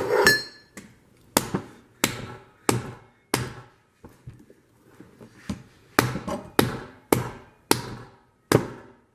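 Hammer blows on a hand impact driver, about ten sharp metallic strikes in two runs with a short pause between, to break loose a stubborn fastener on a pit bike's generator.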